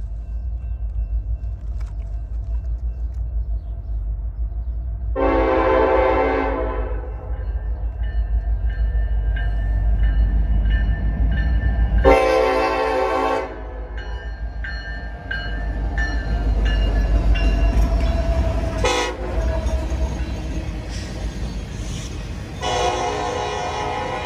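Union Pacific diesel locomotive's air horn sounding the grade-crossing signal as the train approaches: two long blasts, one short, then a final long blast held to the end, over the steady low rumble of the passing train. Near the end the loaded rail flatcars are rolling by.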